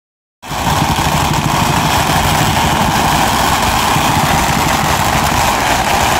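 A long string of firecrackers going off in a rapid, continuous crackle that starts about half a second in and holds at an even level.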